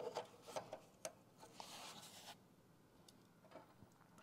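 Faint clicks of pliers on metal, then a soft scraping, as the loosened anode rod is gripped and drawn up out of the water heater tank's port.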